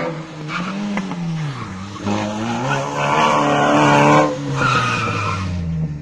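Hatchback rally car's engine revving hard through a cone course, its pitch falling about a second and a half in and climbing again, with the tyres squealing through the turns. It is loudest around three to four seconds in.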